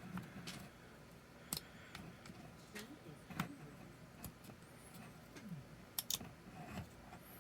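Small sharp clicks and light scraping of a flathead screwdriver tip working in a plastic three-pin electrical connector, prying up its rubber seal. A handful of separate clicks, with two close together near the end.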